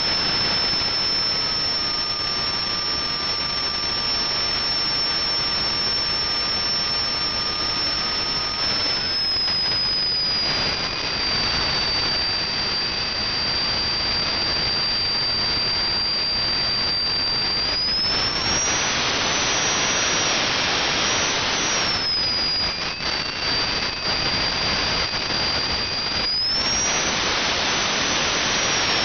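Small gas turbine engine running: a steady loud rush of exhaust and air with a high turbine whine. The whine drops in pitch about a third of the way in, rises again around two-thirds, dips, and climbs once more near the end as the speed changes. A second, lower whine sounds through the first third and then fades.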